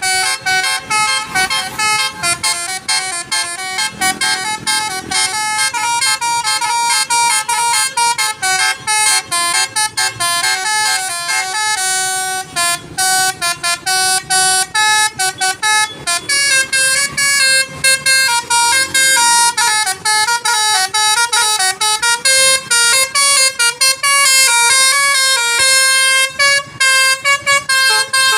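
Basuri telolet bus horn playing a fast melody of short electric horn notes, the pitch jumping up and down note after note. The tune changes to a lower-pitched pattern a little over halfway through.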